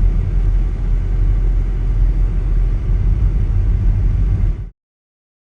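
Loud, steady low rumble with a hiss above it, cutting off abruptly near the end.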